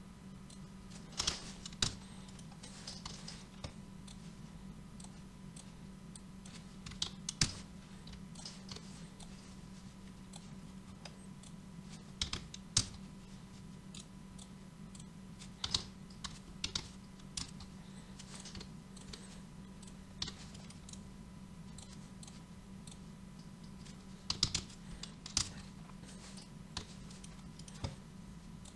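Computer keyboard typing and mouse clicks in short scattered clusters, over a faint steady hum.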